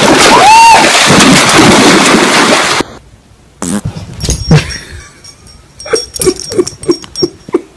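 A dog splashing through shallow lake water, with a loud rushing haze and one short cry. The sound then cuts to a quieter room with a few sharp knocks and a quick run of short sounds, about five a second, near the end.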